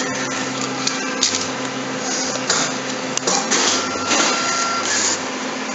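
Coffee-shop counter machinery running: a steady hum with short whirring, hissing bursts about once a second and a brief thin whine near the middle.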